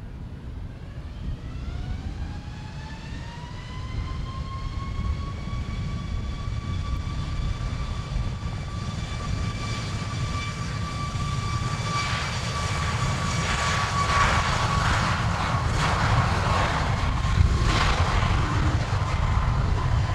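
Jet airliner engines whining: the whine glides up in pitch over the first few seconds and then holds steady, growing gradually louder as the aircraft nears, over a steady low rumble.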